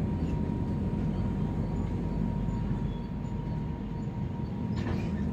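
Express train running with a steady low rumble and a constant hum, with a brief clatter near the end.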